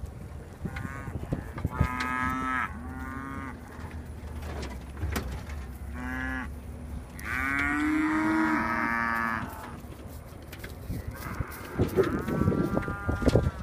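A herd of beef cattle mooing: about six separate calls from different cows, one long drawn-out moo just past halfway.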